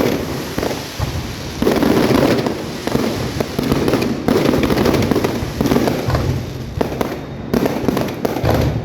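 Fireworks display: a dense, continuous barrage of booming bursts and crackling, with a quick string of sharp cracks near the end.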